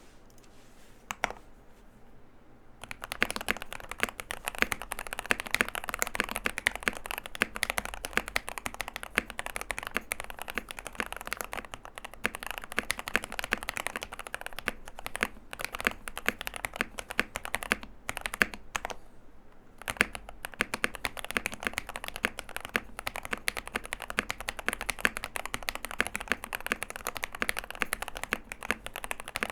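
Fast, continuous typing on a NovelKeys NK87 mechanical keyboard with L+F Banana Split linear switches, lubed Durock stabilizers, a tape-modded PCB and a neoprene-filled case. A single keystroke comes about a second in, then steady typing from about three seconds on, with a brief lull a little past the middle.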